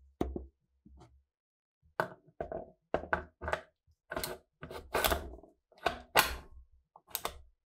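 Steel parts of a PTRD anti-tank rifle's bolt and receiver being handled and fitted together by hand: a string of irregular sharp knocks and clicks, coming thicker and louder after the first couple of seconds.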